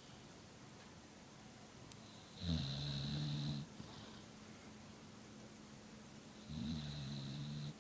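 An American Bulldog snoring in its sleep: two long snores about four seconds apart, each lasting a little over a second.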